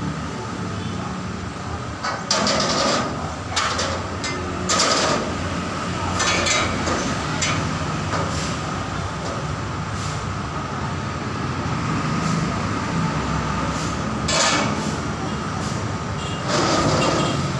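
Street traffic: a steady hum of idling motorcycle and vehicle engines, with several short, louder bursts of noise over it.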